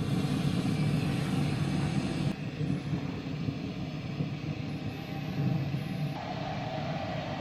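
Compact canister gas stove burning under a pot: a steady roar of the burner flame with gas hiss. The hiss eases about two seconds in, and a steady higher tone joins about six seconds in.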